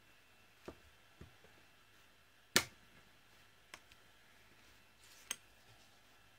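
A handful of short, light clicks and knocks from a small plastic Brusho powder pot being picked up, opened and its lid set on the tabletop; the sharpest knock comes about two and a half seconds in.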